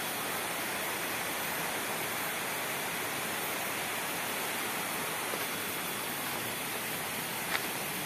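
Steady, even rush of flowing water from a river below, with a single short click about seven and a half seconds in.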